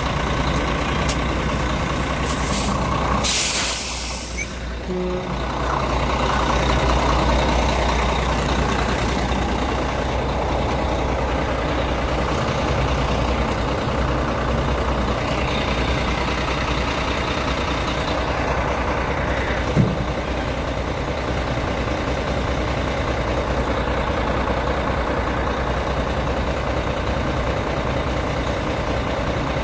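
Heavy diesel engines of trucks and an excavator running steadily. About three seconds in comes a brief burst of air hiss from a truck's air brakes, and about twenty seconds in there is a single sharp knock.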